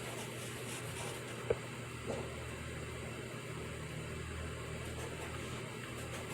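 Pencil writing on paper, with a few faint scratching strokes near the start and two short knocks, a sharp one about a second and a half in and a softer one half a second later, over a steady low room hum.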